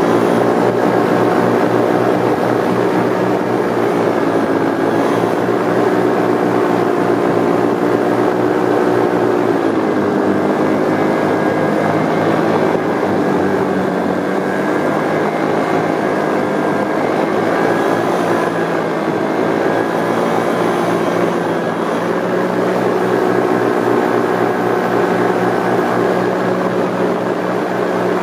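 Paramotor engine and propeller running steadily in flight, its pitch wavering a little and dipping about ten seconds in.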